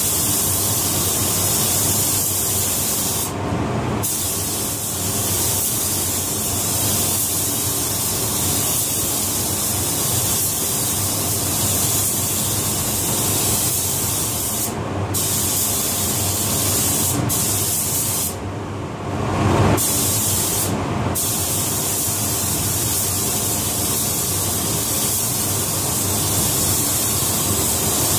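Gravity-feed paint spray gun hissing as compressed air atomises paint onto a pickup truck's panels. The hiss cuts out briefly about five times between passes, over a steady low hum.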